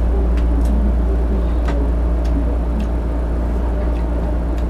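A steady low hum, with a few faint clicks and taps from eating with the hands at a table laid with plates and bowls.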